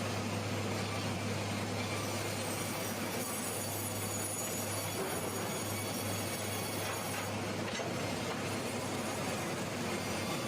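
Sawmill machinery running steadily: a continuous mechanical rumble with a low, constant hum.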